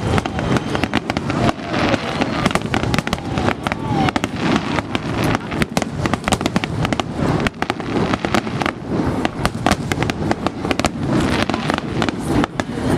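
Fireworks bursting in rapid succession: a dense run of sharp bangs and crackles with no let-up, with voices underneath.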